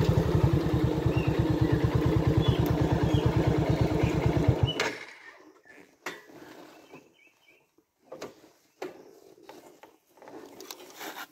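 Small Honda motorcycle's single-cylinder engine running with a steady, even beat, then switched off about five seconds in. After that come only a few faint clicks and knocks.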